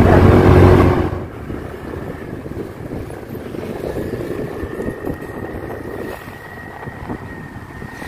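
Motorcycle riding along: a loud, steady engine hum for about the first second, then a lower rumble of engine and wind buffeting the microphone, with a faint steady high whine in the second half.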